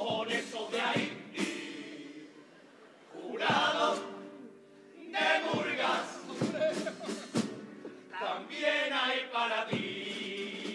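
Male murga chorus singing together over regular percussion hits, with two short lulls in the first half.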